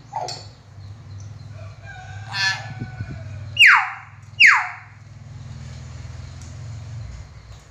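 Hill myna calling: a short call at the start, a harsh call with many overtones about two seconds in, then two loud whistles falling steeply in pitch, just under a second apart.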